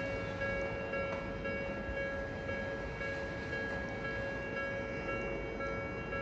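Japanese railway level-crossing warning bells ringing without pause, their electronic tones overlapping into a steady chime, over the low rumble of a train.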